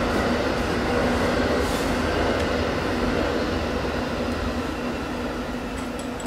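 Passenger train passing at speed: a steady rumble of the cars running on the rails, with a faint steady hum, slowly fading toward the end.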